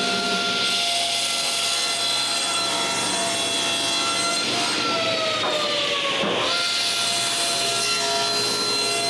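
Power saw running and cutting through a glued-up blank of construction lumber. Its motor pitch sags as the blade takes the cut, recovers about six and a half seconds in, then starts to sag again near the end.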